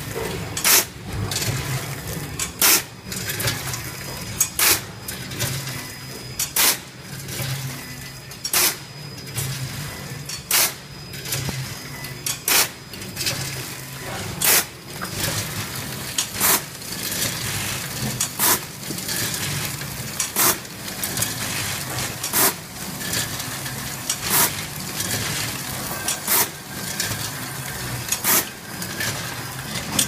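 Automatic popcorn bagging machine running: a steady low hum with a sharp clack about every two seconds as it cycles from one bag to the next.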